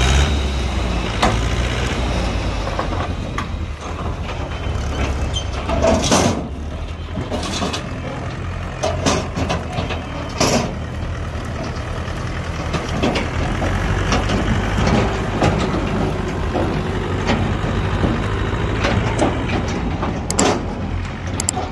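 Mahindra 575 DI tractor's four-cylinder diesel engine running steadily while its hydraulic tipping trailer is raised to dump soil, with a few sharp knocks and clatters over the engine sound.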